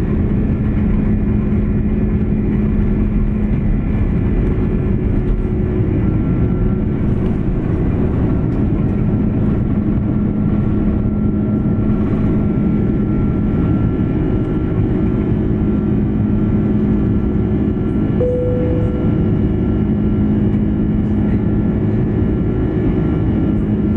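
Airbus A330-300 airliner's jet engines running steadily: a loud, even rumble with steady hums laid over it. About three-quarters of the way through, a brief tone sounds for about a second.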